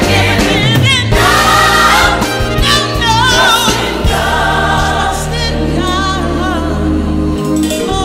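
Gospel worship song: a woman leads with wavering, ornamented singing, backed by other singers and held low instrumental notes.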